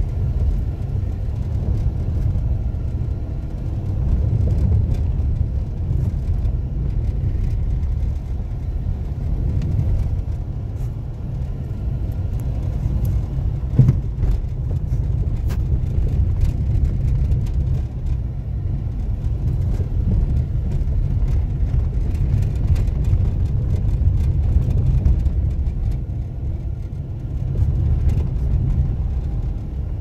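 Steady low rumble of a moving vehicle's engine and tyres, heard from inside as it drives a rough, poorly surfaced village road, with a single sharp knock about halfway through.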